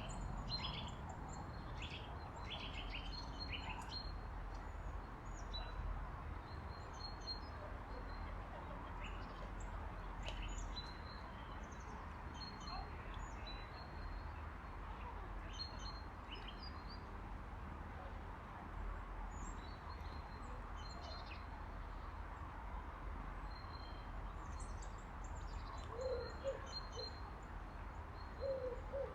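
Small birds such as tits chirping and calling in short high notes, scattered throughout over a steady background hiss and rumble. Near the end, a pigeon begins cooing in low notes.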